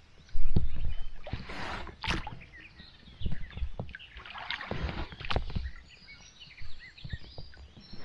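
Paddle strokes splashing in the water beside a small inflatable boat, a sharp splash or knock every second or so, with wind rumbling on the microphone and birds chirping.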